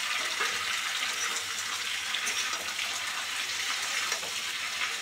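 Sliced onions sizzling steadily in hot oil in a kadhai, with a metal spatula scraping and turning them now and then.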